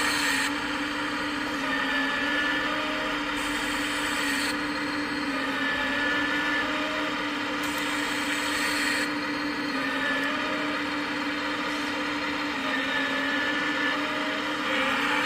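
Hydraulic pump of a 1/14-scale RC Volvo excavator running with a steady whine, dipping briefly in pitch now and then as the boom and bucket work the soil, with a few short high whistles.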